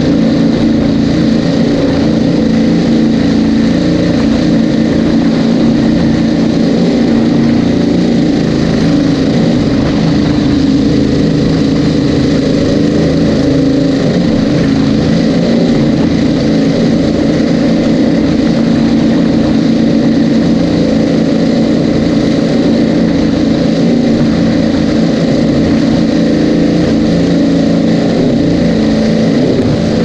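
Twin supercharged GM 598 cubic-inch big-block V8s of a Cigarette Racing Top Gun 38 offshore boat, running loud and steady.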